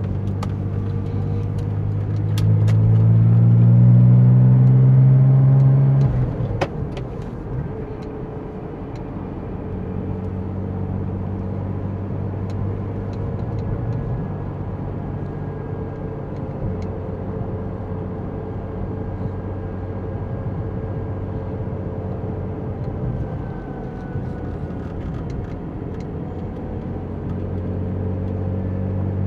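Porsche 911 (996) Turbo's twin-turbo flat-six accelerating, its pitch rising and getting louder for a few seconds. About six seconds in the revs drop away abruptly with a sharp click, and the car settles into a steady low engine drone with road noise.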